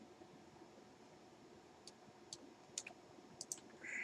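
Near silence with a few faint, scattered clicks from working a computer's mouse and keyboard, mostly in the second half.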